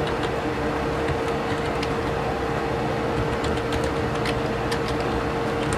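Steady background hum and hiss, with a few faint computer keyboard clicks in the second half as text is typed.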